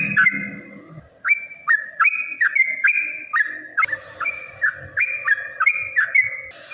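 Yellow-vented bulbul (trucukan) singing a long run of repeated chattering notes, about two a second, with a short pause about a second in. Just before the end the song cuts abruptly to another recording with quicker, higher notes.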